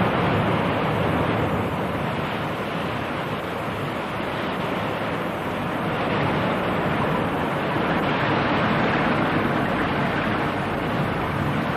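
Water rushing in a steady, surging torrent, the sound of a great mass of water under pressure.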